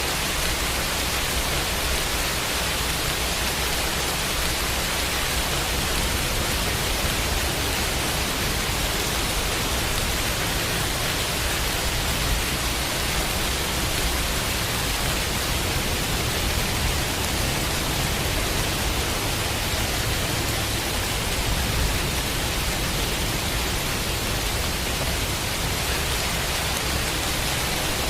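Steady rain hiss, an even wash of noise with no single drops standing out, over a low rumble that swells slightly around the middle.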